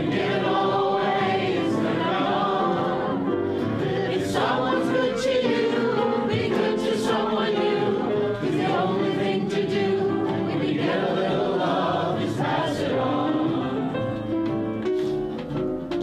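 A room full of people singing a folk-song chorus together, with strummed acoustic guitar and piano behind them.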